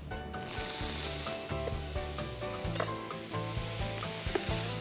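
Diced apple frying in hot sunflower oil in a pan, a steady sizzle that starts suddenly a moment in as the cubes go into the oil.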